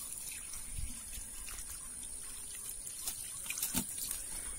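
Water trickling and splashing as it is poured out of a metal can onto wet grass, with a few light taps about three seconds in.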